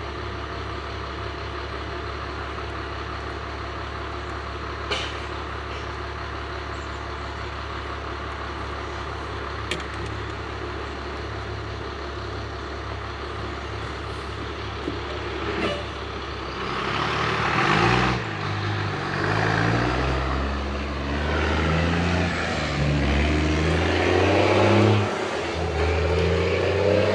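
Truck engine idling steadily with a few sharp clicks, then about 17 seconds in pulling away and accelerating, the engine note shifting and road noise rising.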